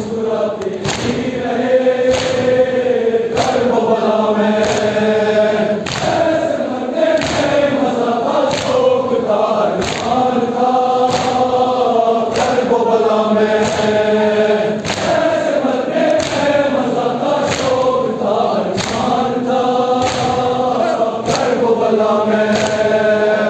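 A crowd of men chanting a mourning lament (nauha) in unison, with rhythmic thumps of chest-beating (matam) keeping time about once a second.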